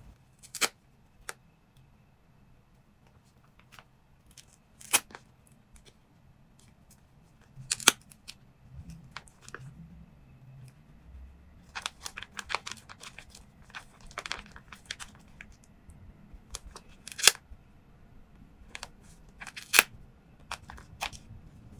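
A paper squishy covered in clear tape being squeezed and pressed in the hands: scattered crinkling and crackling of the tape, with several sharper, louder crackles and a busier run of crinkling around the middle.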